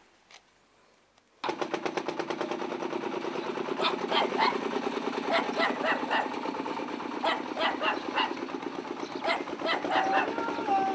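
Single-cylinder diesel engine of a three-wheeled farm truck chugging along with a rapid, even beat and occasional louder knocks. It starts abruptly about a second and a half in, after near silence.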